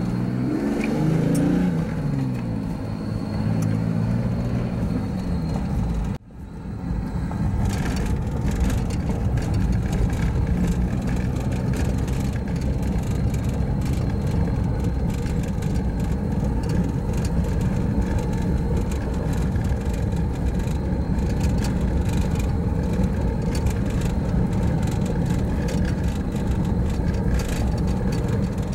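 1990 Jeep Cherokee's 4.0-litre straight-six running while the vehicle is driven. Its note shifts in pitch over the first few seconds, breaks off briefly about six seconds in, and then settles into a steady low drone.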